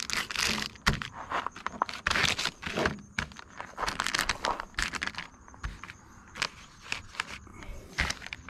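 Plastic packets of soft-plastic fishing lures crinkling and rustling as they are handled and laid on a truck bedliner, in irregular crackles that are busiest in the first half and thin out after.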